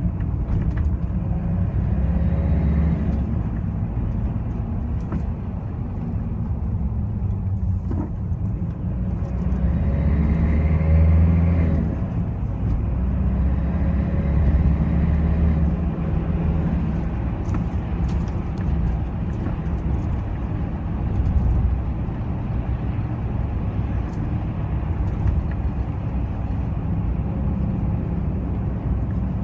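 Mitsubishi L200 pickup's diesel engine running under acceleration, a heavy low rumble that rises and falls, with a faint higher whine swelling a few times. This is the strange noise that comes with a loss of power.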